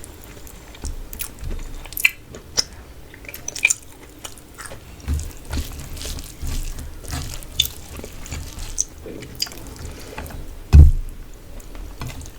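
Close-up eating sounds: wet chewing and lip smacking of basmati rice with katla fish curry, with scattered sharp clicks. There is one loud low thump near the end.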